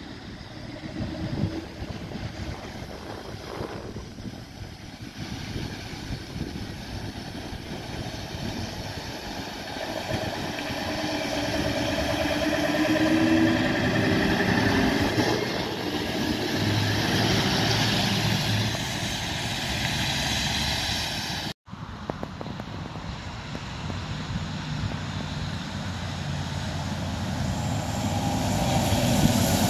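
Scania box truck's diesel engine pulling away from a roundabout and passing close, getting louder with its engine note rising as it accelerates. After a cut, a loaded Scania log truck approaches along a highway, its engine and tyre noise building toward the end.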